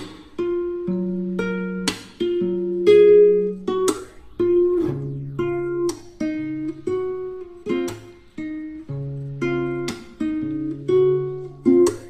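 Background music: a guitar plucking and strumming a slow, gentle tune, with a new note or chord about every second.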